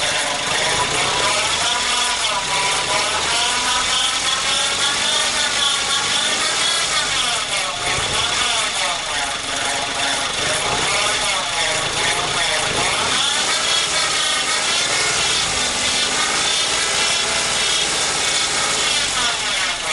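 Car alternator making its abnormal running noise over the engine: a rubbing whine that wavers up and down in pitch, with a steady high tone above it. The owner takes it for a failing alternator bearing.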